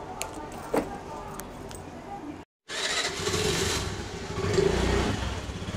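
A few light clicks, then after a sudden cut a Honda scooter's small engine running under a steady noisy rush, getting louder about five seconds in as it picks up.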